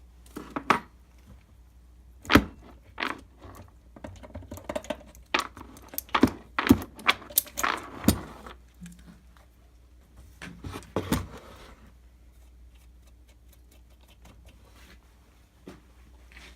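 Metal clinks and knocks of hand tools and chainsaw parts being handled and set down on a workbench. The sharp knocks come irregularly for about twelve seconds, then it goes mostly quiet with a few light ticks.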